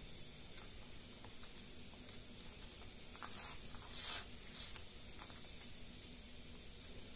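Faint rustling and scraping of craft-foam (foamy) pieces being picked up and handled on a cardboard sheet, a few short bursts between about three and five seconds in, over a steady faint hiss.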